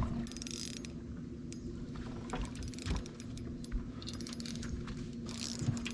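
Scattered light clicks and taps of a landed fish and fishing gear being handled in a boat, with a few short splashy hisses over a steady low hum.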